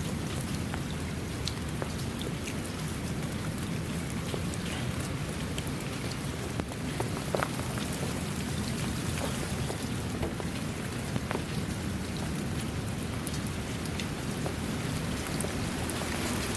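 Steady rain falling, with scattered individual drops pattering close by.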